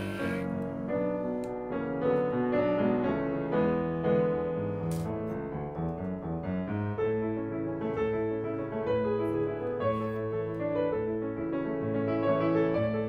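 Piano music playing.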